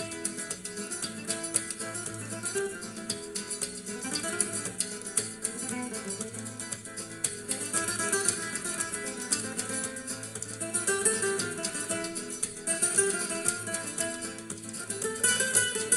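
Background music: acoustic guitar, plucked in a flamenco or Latin style, with a steady beat.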